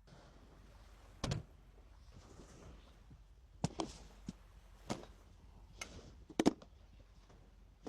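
A series of sharp knocks and clunks, irregularly spaced, with a close double knock a little past the middle the loudest.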